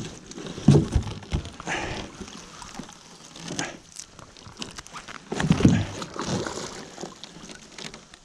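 A wet gill net with caught zander being hauled and trampled over a metal boat's bow: the rustle and slosh of net and water, with dull thumps on the hull about a second in and again around five and a half seconds.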